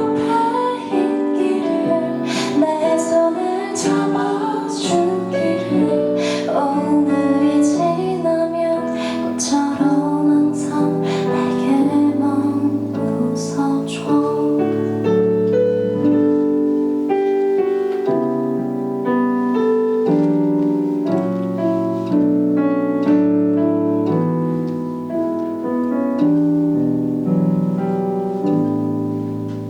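Live band playing a soft song: a voice singing over piano or keyboard chords with regular percussion hits for about the first half, then the keyboard chords carry on alone without the percussion.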